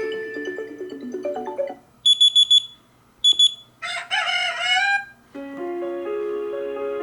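Huawei Mate 10 Pro stock alarm tones previewed one after another. The end of a stepped electronic melody is followed by two short runs of rapid high electronic beeps, then a recorded rooster crowing, then a new plucked melody starting near the end.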